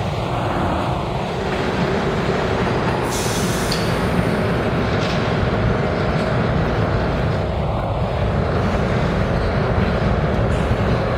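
New York City subway train running out of an underground station: a steady rumble of wheels on track, with a brief high hiss about three seconds in.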